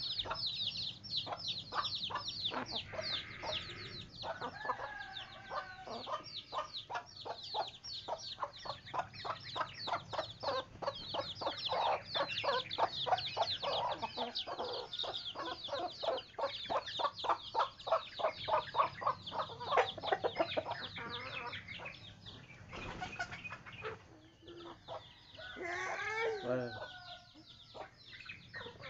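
A flock of chickens clucking and calling, over a nearly unbroken run of rapid, high-pitched cheeping. A longer, drawn-out call stands out about 25 seconds in.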